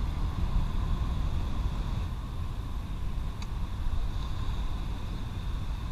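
Steady low rumble of wind on the microphone over choppy sea water, with one faint click about three and a half seconds in.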